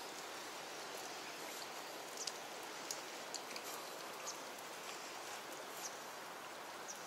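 Steady rush of water running over bedrock into a pool, with faint short high ticks scattered through it.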